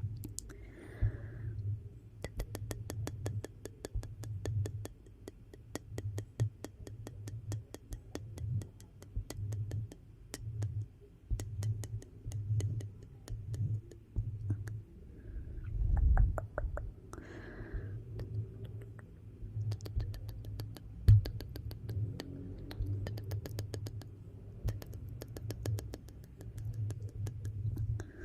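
Wood fire in a fireplace crackling: dense runs of small sharp pops over a low rumble, with one louder pop about three quarters of the way through.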